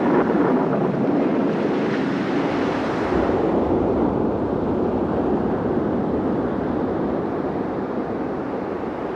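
Rushing noise of surging sea water, starting suddenly and slowly easing off.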